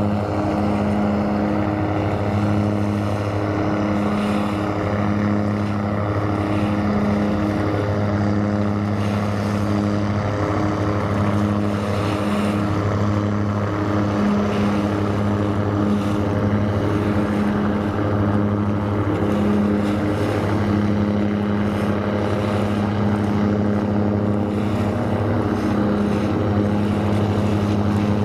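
A ship's engine droning steadily and loudly, with a low hum that swells and fades every second or two.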